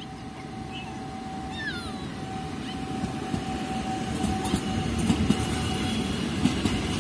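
A train approaching, its low rumble growing steadily louder, with sharp clicks from about four seconds in. Birds chirp briefly about a second and a half in.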